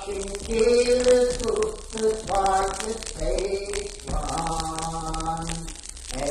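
Unaccompanied singing of a Cape Breton Scottish Gaelic folk song: held, sliding sung phrases with short breaks between them.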